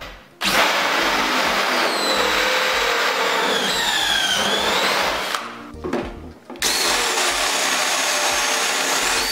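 Cordless drill spinning a swaging bit into the end of a copper tube, then a flaring bit. The drill runs in two spells of a few seconds with a short pause between, its whine shifting in pitch; background music underneath.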